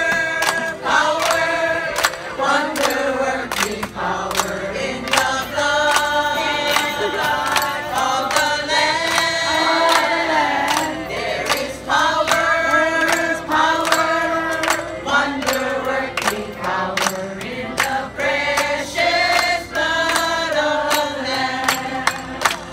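A group of men and women singing a song together into a microphone, with a keyboard accompanying them and a steady beat running through.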